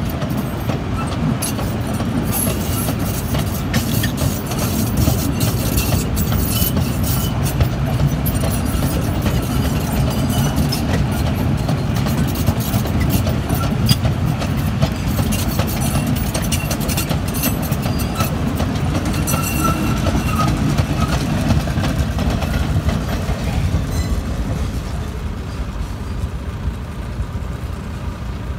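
Loaded sugar cane wagons of a cane train rolling past with a steady rumble and sharp clicks of wheels over the rail joints. The sound fades near the end as the last wagons pass.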